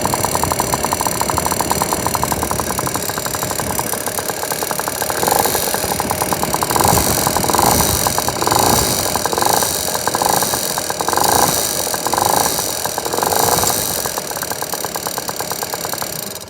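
Piaggio NRG scooter's two-stroke engine, fitted with a 70cc big bore kit, running with a fast regular ticking that the owner suspects comes from the top end, though the piston is not hitting the head. From about five seconds in, the throttle is blipped in short rises roughly once a second, then it settles back to idle.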